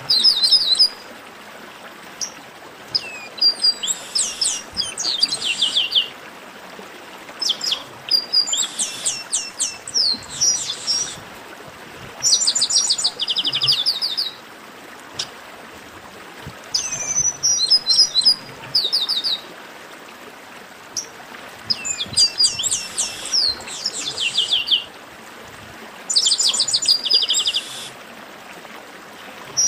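Chestnut-capped blackbird song: bouts of fast repeated high notes, each lasting one to three seconds, coming again every few seconds over a steady faint hiss.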